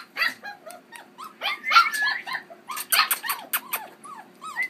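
Five-week-old Keeshond puppy giving a string of short, high-pitched yips and squeaky little growls while it plays, the calls coming in several quick clusters.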